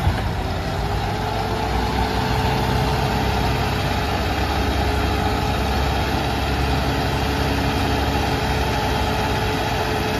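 Diesel engines of an Arjun Novo 4WD tractor and a Swaraj tractor running steadily under load, pulling a fully loaded trolley through deep mud; a continuous low drone.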